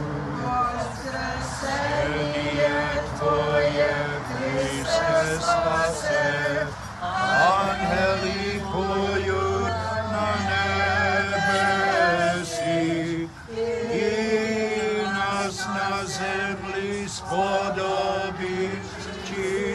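Congregation of men and women singing a Byzantine liturgical chant together, a Paschal hymn, with several voices overlapping throughout.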